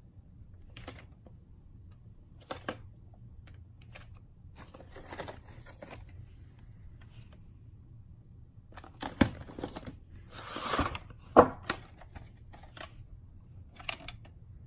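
Hands handling a VHS tape in its cardboard slipcover: scattered soft rustles and light clicks, then, about nine to eleven seconds in, a louder scrape and a sharp plastic click as the black cassette is slid out of the sleeve.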